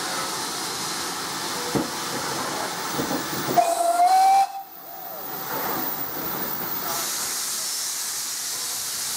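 Steam locomotive hissing steadily with escaping steam. About three and a half seconds in, a short whistle blast of just under a second is the loudest sound, and it cuts off abruptly.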